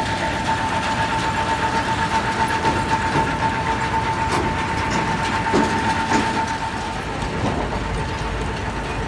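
Sugar beet unloading machinery running: a steady high whine over a mechanical rumble. The whine stops about seven seconds in.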